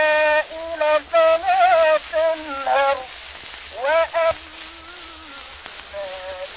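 A man's voice chanting Quran recitation in long, ornamented melismatic phrases, heard through the steady hiss and crackle of a very old recording. The phrases are loud in the first half, and the chant turns fainter from about halfway.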